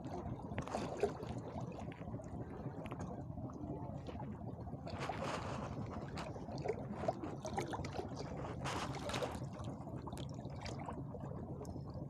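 Sea water lapping and sloshing against the rocks, with a few brief louder splashes, over a steady low rumble.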